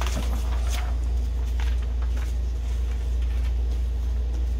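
Paper lab sheets being turned over and smoothed flat on a desk, a few light rustles, mostly in the first two seconds, over a steady low hum.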